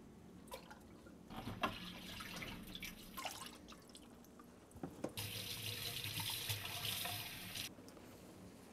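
Tap water running into a sink as CPAP mask and tubing are rinsed: a softer run of water, then a stronger steady stream about five seconds in that cuts off abruptly, with a few small plastic clicks from the parts being handled.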